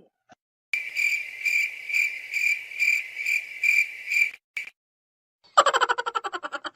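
Cricket chirping: a high, steady trill pulsing about twice a second, which cuts off abruptly. Near the end, a fast run of rattling clicks starts loud and dies away.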